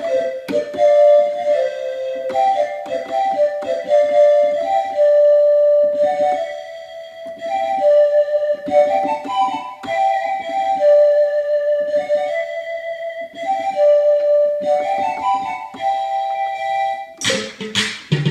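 Korg Krome synthesizer keyboard playing a melody in a Korg M1 patch, mostly single held notes in the middle register. About a second before the end it changes abruptly to loud, noisy percussive hits.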